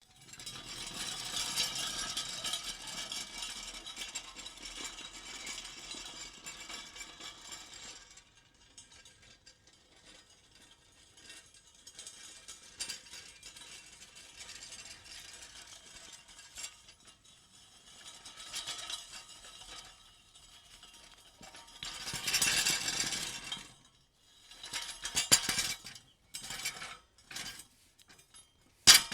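Metal pieces being shuffled and jostled together, clinking and rattling. A dense, continuous rattle for the first eight seconds gives way to quieter, intermittent shuffles, then a louder burst about two-thirds of the way through, followed by short separate shuffles near the end.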